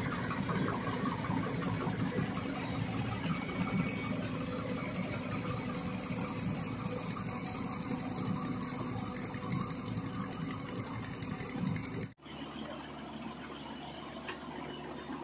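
Ford 3600 tractor's three-cylinder engine running as it drives through deep mud, with a running excavator alongside. Near the end the sound breaks off sharply and a quieter, steadier engine sound takes over.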